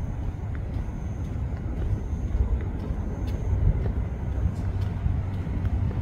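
Low, fluctuating rumble of suburban street ambience, with a faint high-pitched whine through the first half.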